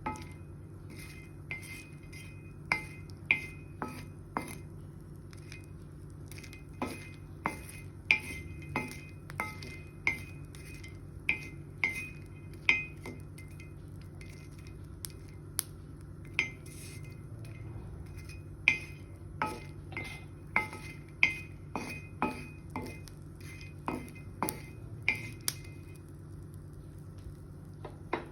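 A metal spoon clinking and scraping against a dish, as when stirring or mixing, in irregular sharp taps that each ring briefly, over a steady low hum. The clinking thins out for a couple of seconds about halfway through and again near the end.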